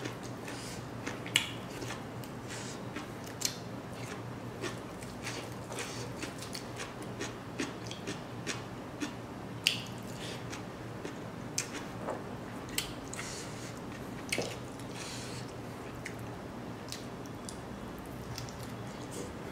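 Close-up eating sounds of a person biting and chewing dry smoked pork with rice by hand: irregular wet mouth clicks and smacks, about one or two a second.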